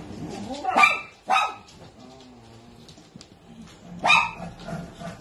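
Dog barking: two barks close together about a second in, then a third about four seconds in.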